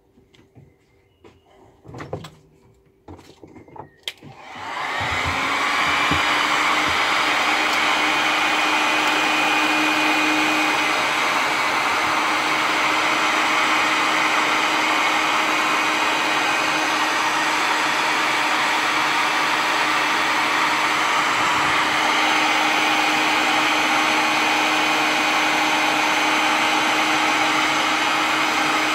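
Electric heat gun switched on about four seconds in, then running steadily with a rushing of air over a motor hum, heating a lead jig head for powder coating. Before it starts come a few light clicks and knocks from handling.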